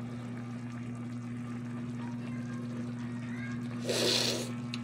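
Adobo sauce simmering in a wok over a steady low hum; about four seconds in, a short slurp as the cook sips the broth from a spoon to check it for salt.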